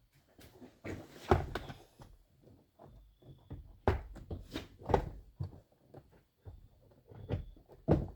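Plastic car door trim panel being handled and pressed back onto the door: an irregular series of knocks, taps and thuds, with the loudest knocks about a second in, around four to five seconds in, and near the end.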